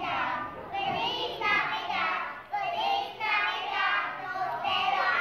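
A group of young children singing together in high voices, in short phrases with brief breaks between them.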